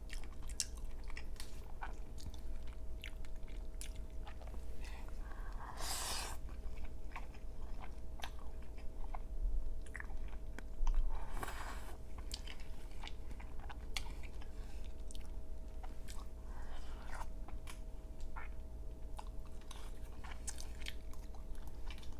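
Close-miked chewing of creamy crawfish pasta with egg: a steady run of small wet mouth clicks and smacks, with two longer, louder breathy noises, one about a quarter of the way in and one about halfway.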